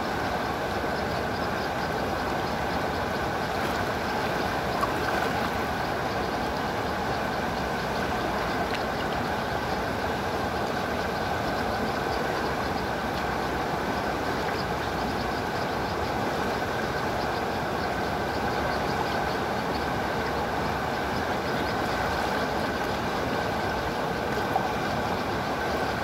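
Thiba River water rushing steadily over rocks and a shallow rapid.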